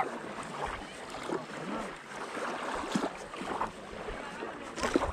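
Small waves lapping and washing on a sandy shore, in irregular soft splashes a second or so apart.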